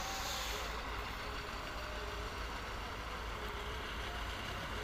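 Steady low engine rumble with faint, even background noise and no distinct events.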